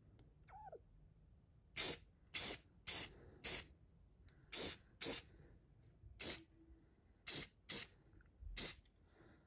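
Airbrush spraying clear coat in about ten short bursts, each a fraction of a second long, from about two seconds in.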